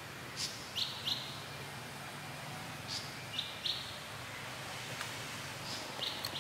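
A bird calling three times, each call a short high chip followed by two quick notes, over a steady background hiss.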